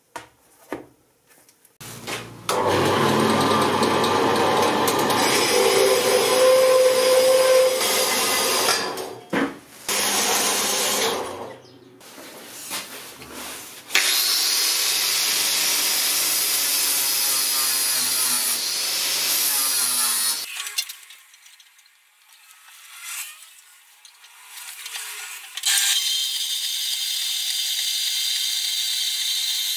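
Power tools cutting steel stock: several stretches of loud, steady cutting noise separated by short pauses, one of them with a whine that rises and falls. In the last few seconds an Apex horizontal metal-cutting band saw runs steadily.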